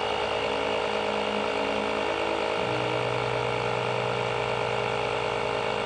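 Portable air compressor running steadily, pumping air into a water-filled PVC shower tank to build pressure. Its tone drops to a lower hum about halfway through.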